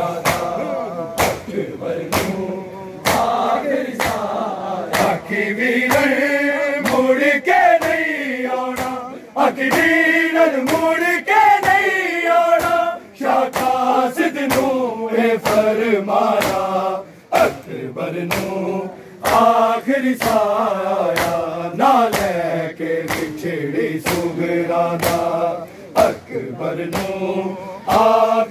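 Men chanting a noha (Shia mourning lament) together, with a steady rhythm of sharp hand slaps from chest-beating (matam), about two a second, under the singing.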